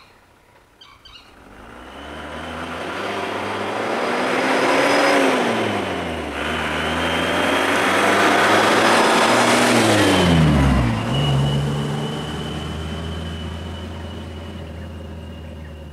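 Isuzu light truck's engine approaching and revving up. Its pitch dips about five seconds in, then climbs again. The truck passes close about ten seconds in, with a sharp drop in pitch, and fades as it drives away.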